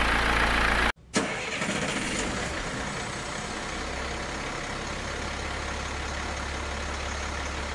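Truck engine sound effect: it cuts off abruptly about a second in, then a new engine start with a brief rev and a steady run with a low rumble.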